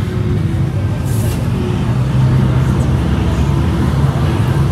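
Engine and road noise of a local public-transport bus on the move: a steady low hum under a noisy rumble, with a brief hiss about a second in.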